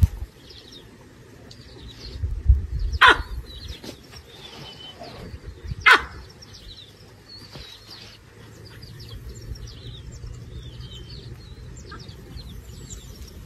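Two sharp, loud barks about three seconds apart, the alarm barks of baboons at lions below their tree, over steady chirping of small birds.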